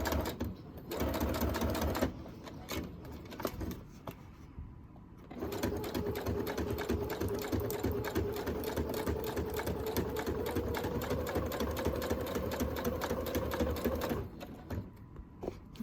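Electric sewing machine stitching through faux leather: a short run near the start, a pause of a few seconds, then a long steady run of rapid, even needle strokes over a constant motor hum that stops shortly before the end.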